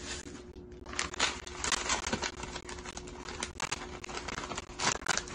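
Plastic packaging of a bag of shiratamako rice flour crinkling and rustling as hands work at it, in irregular crackling bursts.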